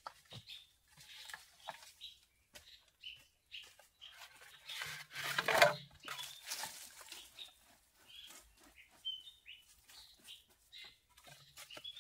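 Small birds chirping in short calls, over the rustle and crunch of footsteps on dry leaf litter. About five seconds in comes a louder rustling clatter lasting a second or so, as wooden poles are set down on the dirt.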